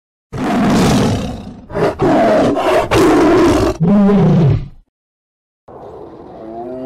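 Tiger roaring: four loud roars in quick succession, the last one trailing off in a falling tone. A quieter, wavering call starts near the end.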